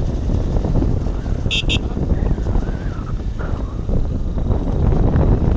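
Steady rumble of a moving motorcycle and wind buffeting the microphone, with two quick, short horn toots about one and a half seconds in.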